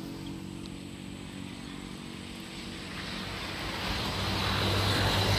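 A motor vehicle's engine running close by, its sound growing steadily louder from about halfway through.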